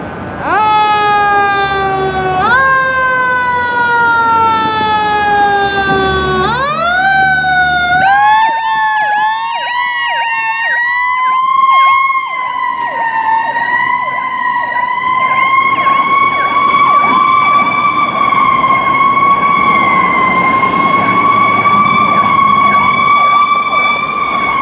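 Fire engine sirens on an emergency response: two long falling siren tones, then about six seconds in a quick climb into a high, held wail that wavers slightly and runs on.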